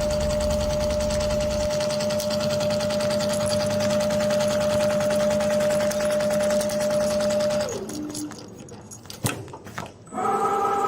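Automatic single-needle lockstitch sewing machine for leather and heavy materials stitching at a fast, steady rate over a steady motor whine. About three quarters of the way through, the whine falls in pitch and the machine runs down, leaving a few clicks. Near the end, a short whirring starts up.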